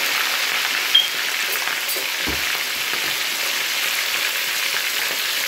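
Whole fish frying in a pan of hot oil: a steady, busy sizzle and crackle of bubbling oil. One short sharp pop comes about a second in.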